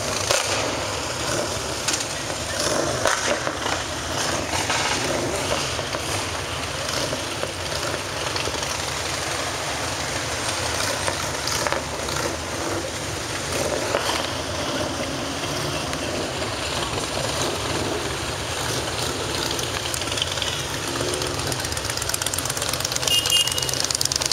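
A group of motorcycles, cruisers and sport bikes, heading out together behind a sheriff's SUV: engines running and pulling away. Near the end several bikes pass close and louder.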